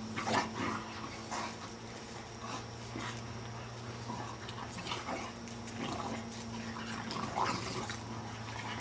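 English bulldogs play-fighting, giving short, scattered dog vocalisations every second or few, over a steady low hum.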